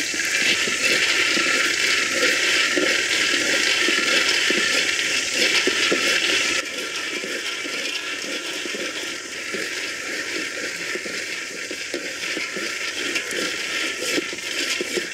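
Peanuts dry-roasting in a steel pan, the nuts rattling and crackling against the metal as they are stirred, over a steady hiss. The sound drops suddenly in level about six and a half seconds in.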